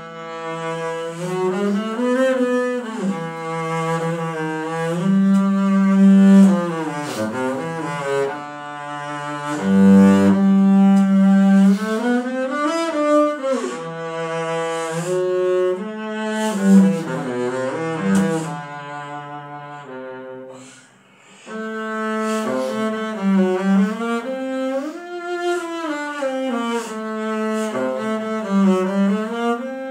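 Solo double bass played with the bow: a melodic passage of sustained notes with vibrato and sliding shifts between them, pausing briefly about two-thirds of the way through.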